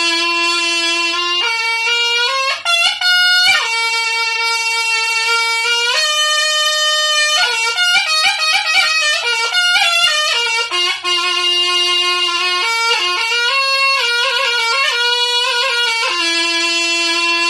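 Slompret, the Javanese double-reed shawm of Reog, playing a solo melody without a break. It holds long notes and runs a quick ornamented passage in the middle.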